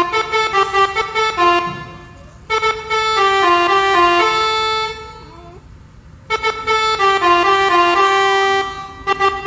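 Bus telolet horn, a multi-tone musical air horn, playing a quick tune of stepped notes in three phrases, with short pauses about two seconds in and again around five and a half seconds.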